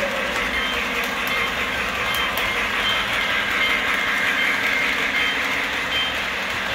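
Model train running on its track: a steady rolling whir and clatter of the wheels as the cars pass.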